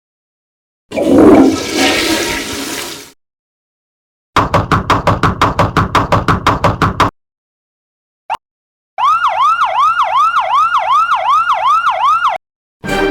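A series of separate sound effects with silent gaps: about two seconds of rushing noise, then a fast stuttering run of pulses at about nine a second, a single short click, and a repeating electronic tone that sweeps up and drops back about three times a second, like a siren or alarm.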